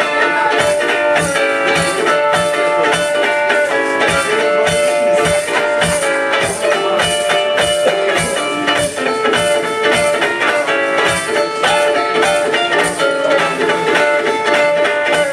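A live band playing: guitar over a steady drum beat.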